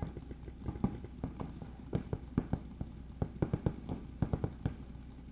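Paintball markers firing during play: a string of sharp pops at irregular spacing, coming faster from about two seconds in.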